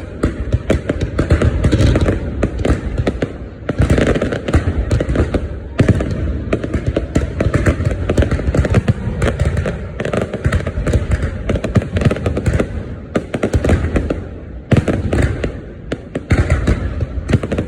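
Fireworks going off in a dense, continuous barrage of pops and crackles, easing briefly a few times before picking up again.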